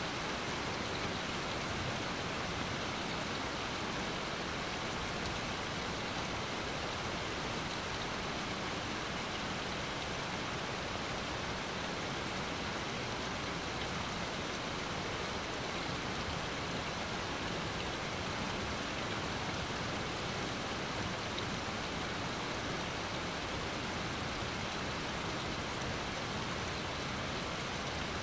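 Steady rain falling on a lawn and trees: an even hiss that holds at the same level throughout.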